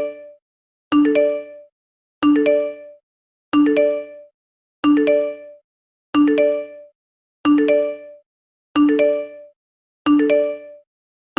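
iPhone text-message alert tone: a short bright chime of quick rising notes, repeated about every 1.3 seconds with silence between, roughly nine times.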